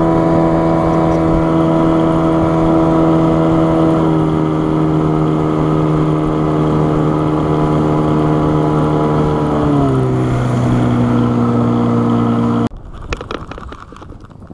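Outboard motor on a jon boat running under way at a steady speed, its pitch dropping in steps as it is throttled back. The engine sound cuts off abruptly near the end, leaving a few faint clicks.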